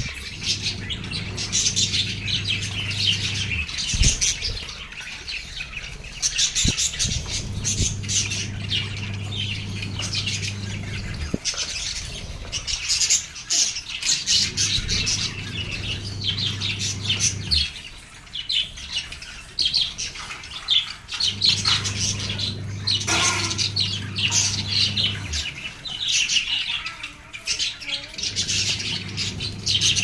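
A flock of budgerigars chattering and squawking without pause, with a low steady hum that comes and goes every few seconds beneath it.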